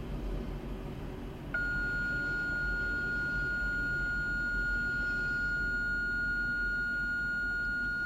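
A single steady, high-pitched alert tone from a radio scanner comes on abruptly about a second and a half in and holds unchanging, over a low rumble. It is the dispatch attention tone that comes before a county radio announcement to all units.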